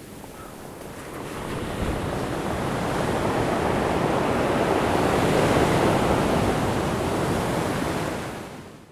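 Ocean surf: a rush of waves that swells over several seconds, then fades out near the end.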